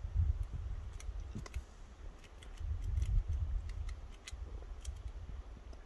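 Golden-mantled ground squirrel crunching a chip: faint, sharp, irregular clicks several times a second, over a low rumble on the microphone.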